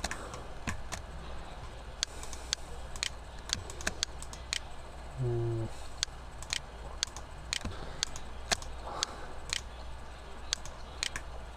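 Irregular clicks of a computer mouse and keyboard, a few each second, over a steady low hum.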